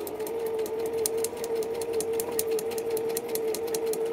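Electric sewing machine running steadily at speed on a straight stitch: a steady motor whine with a rapid, even clicking of the needle mechanism.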